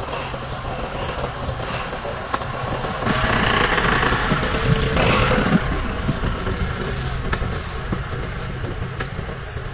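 An engine running steadily with a low hum, growing louder for a few seconds in the middle, with a few light clicks.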